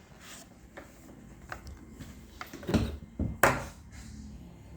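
A few light knocks and clicks of objects being handled and set down, the loudest about three and a half seconds in.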